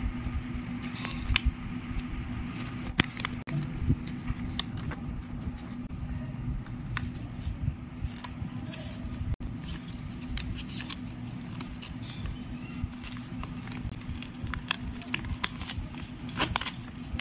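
A sheet of notebook paper rustling and crackling in short, irregular bits as it is folded and its creases pressed down by hand, over a steady low hum.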